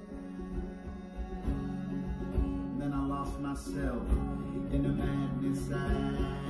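Live acoustic guitar music, strummed and plucked, with the playing growing fuller about a second and a half in.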